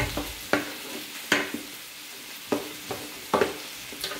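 Wooden spatulas stirring pork and vegetables in a large frying pan, about six sharp scrapes against the pan over a steady sizzle of frying.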